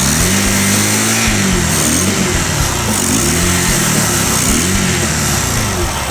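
Honda Rebel CMX250C's parallel-twin engine running and being revved up and down over and over: one long swell, then quicker throttle blips about every half second to a second. The engine is hard to start and idles badly after standing for several years.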